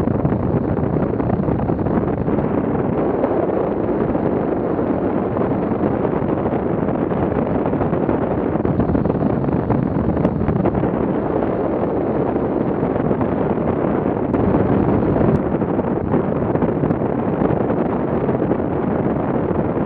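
Wind buffeting the microphone of a camera mounted on a hang glider in flight: a steady, loud rush with no break.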